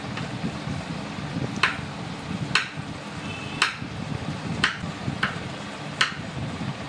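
Kitchen knife cutting through avocado and knocking on a wooden cutting board as the fruit is diced: about six sharp knocks, roughly one a second, over a steady low background hum.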